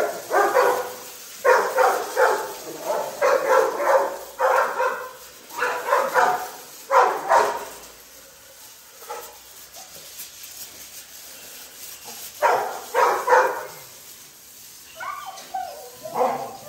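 XL American bully dogs barking in repeated bursts through the first half, a lull, then more barking near the end, over a faint hiss of a hose spraying water.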